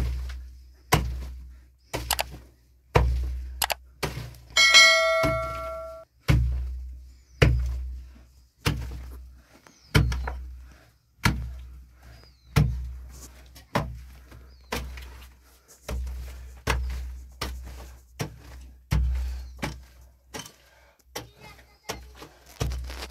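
A hand digging tool striking earth in steady heavy blows, about one a second, each a dull thud. One blow about five seconds in gives a metallic ring, as the blade hits stone.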